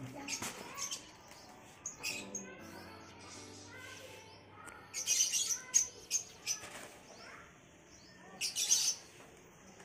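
Thin paper kites rustling and crackling in short bursts as they are handled, with small birds chirping in the background.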